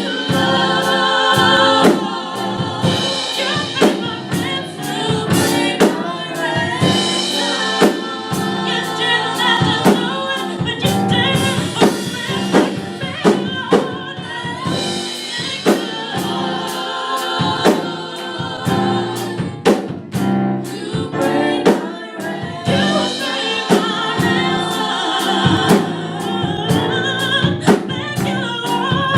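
Gospel vocal group singing in harmony over a drum kit, with steady snare and kick hits keeping the beat.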